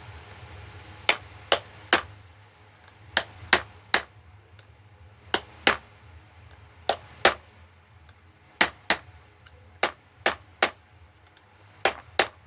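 Sharp taps of a small hammer on the metal end of a box fan motor, in quick pairs and triples every second or so, while a shaft bushing is being worked on.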